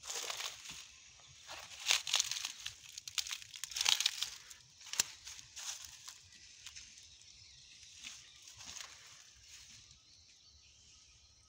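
Footsteps crunching and crackling on dry crop straw and stubble, irregular and loudest in the first half, then thinning out.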